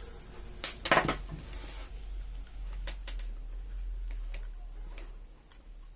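Parts of a disassembled car alarm siren being handled: a clatter of hard clicks and clinks about a second in, then a few lighter scattered clicks.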